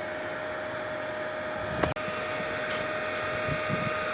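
A machine's motor running steadily: an even whirring hiss with a steady hum-like tone in it. There is a sharp click with a momentary break about two seconds in.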